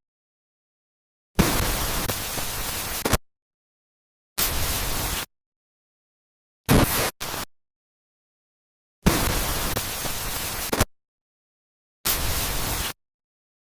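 Looped sound effect of harsh static-like noise in hard-cut bursts with dead silence between them: a long burst, a shorter one, then two quick ones, the pattern repeating about every eight seconds.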